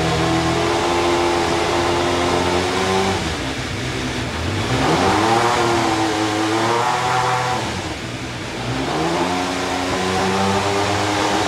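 Alfa Romeo 155 DTM's 2.5-litre naturally aspirated V6 race engine running stationary during warm-up. It is held at raised revs, swells up about five seconds in, drops back about three seconds later, then climbs again near the end.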